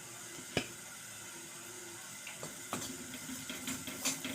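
Steady hiss of gram flour sizzling in hot desi ghee in a kadhai. A spoon clicks on the pan a few times: once sharply about half a second in, then more often near the end.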